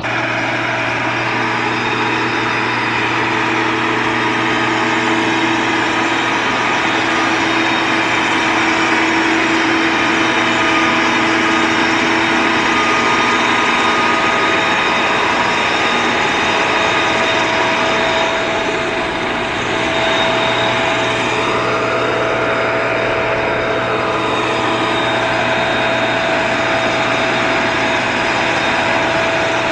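Farm tractor's diesel engine running steadily under heavy load while towing a trailer through deep mud.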